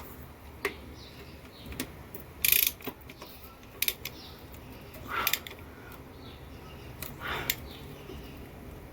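Scattered metallic clicks and clinks of hand tools on bolts while an oil pump is fastened to the engine, with the loudest clink about two and a half seconds in.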